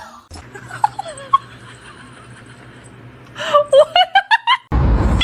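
A person laughing in a quick run of short bursts over a low steady hum, then an abrupt cut to a loud rushing noise near the end.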